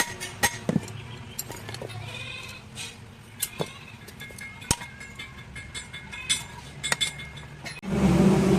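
Scattered sharp metal clicks and taps from blacksmith work on a sickle, with a wavering animal call about two seconds in. A loud low rumble starts suddenly near the end.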